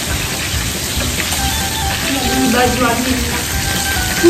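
Fish frying in hot oil in a pan on a portable gas stove, sizzling steadily.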